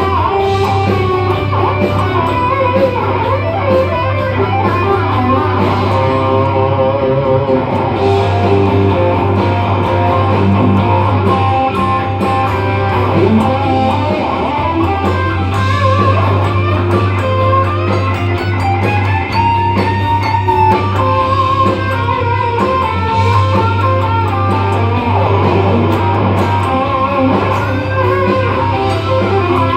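Electric guitar music: a melodic line with wavering vibrato on held notes over a sustained low bass note.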